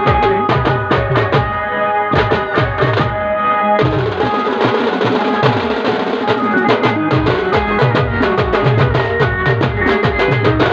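Timli dance music from a live band: fast, dense drumming under a held melody line. About four seconds in the bass drums drop out and a high cymbal-like hiss comes in, and the bass drums return near seven seconds.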